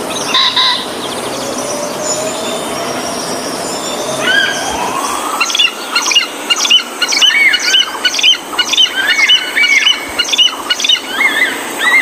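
Birds calling: a slow rising note, then from about halfway through a quick run of short, repeated chirps.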